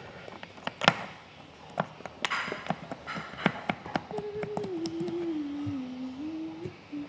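Slime being handled and pressed into a cup: many small sticky clicks and pops. Midway a low single tone sounds for a couple of seconds, dipping in pitch and rising again.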